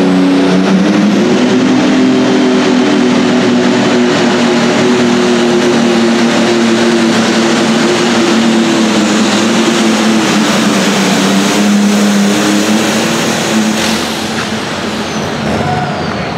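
Massey Ferguson 7615 super stock pulling tractor's engine running at full throttle under load while pulling a sled, its pitch wavering and dipping slightly. Near the end the engine eases off and a high whistle slides down in pitch.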